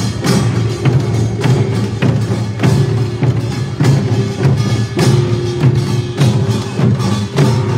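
Korean pungmul percussion band playing janggu hourglass drums and buk barrel drums in a steady, driving rhythm, with sharp stick strikes on top.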